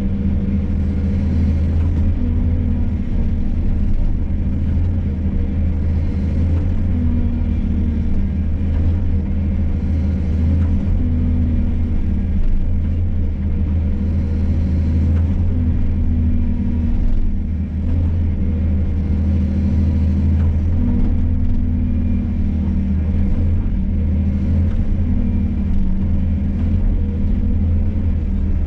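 XCMG 225 hydraulic excavator's diesel engine running steadily at working speed. Every four to five seconds its note briefly strengthens and brightens as the machine is worked.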